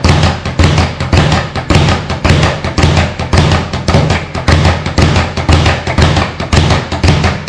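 Speed bag rattling against its rebound platform under gloved punches, a fast steady rhythm of sharp knocks, several a second.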